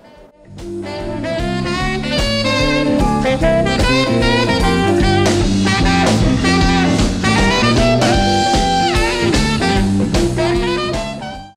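Instrumental jazz background music with a horn melody and drums. It comes in about half a second in and cuts off abruptly at the end.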